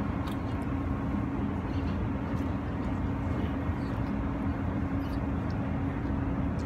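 Steady low rumble of city traffic, with a constant low hum running under it.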